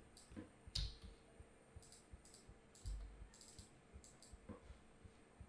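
Faint, irregular clicking of a computer mouse and keyboard, with a dull low thump about a second in and another about three seconds in.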